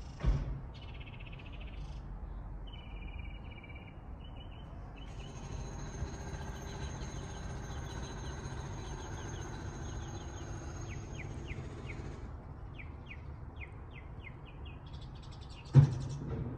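Small birds chirping in short repeated calls and trills, over a steady low rumble, with two sharp thumps: one right at the start and a louder one near the end.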